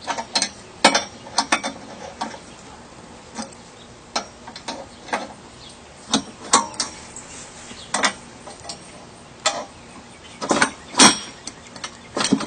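Scattered metallic clicks and knocks of a chainsaw mill's frame being adjusted: the bar clamp lowered onto spacer blocks and its hardware handled, with a cluster of louder knocks near the end.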